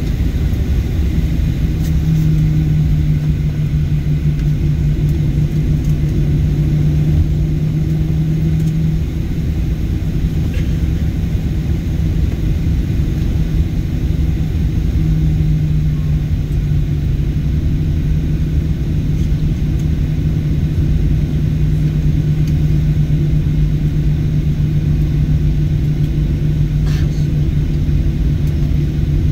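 Cabin noise inside a Boeing airliner taxiing after landing: a steady low rumble with a steady low hum over it that fades out for several seconds in the middle and then returns.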